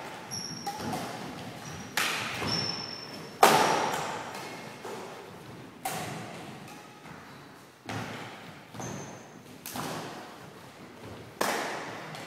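Badminton rackets hitting a shuttlecock in a rally: six sharp cracks about two seconds apart, each ringing out in a large hall. Brief high sneaker squeaks on the wooden floor come between hits.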